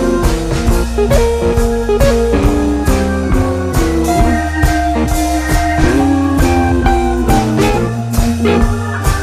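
Background music: guitar over a steady drum beat.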